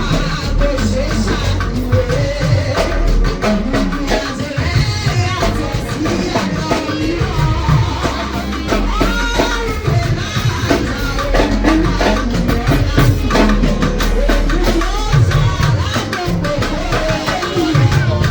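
Upbeat music with singing over a steady beat of drums and hand percussion.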